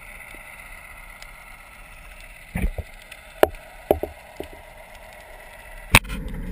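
Muffled underwater ambience through a GoPro's waterproof housing: a low steady hiss with a few scattered clicks and knocks in the middle and one sharp click near the end. In the last half second it cuts to the louder noise of the boat and wind.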